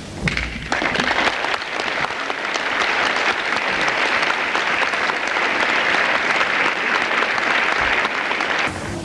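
Audience applauding, a dense steady clapping that begins just after the start and cuts off abruptly near the end.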